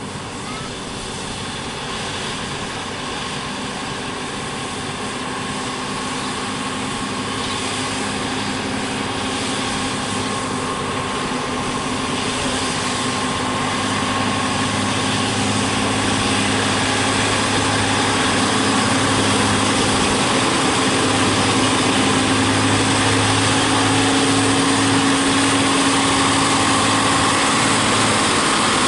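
Diesel engines of heavy MAN TGS 40.440 trucks running at a low, steady pitch, growing steadily louder as the trucks approach.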